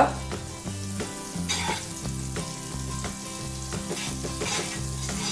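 Butter sizzling as it melts in a hot frying pan, a steady crackling hiss with small pops.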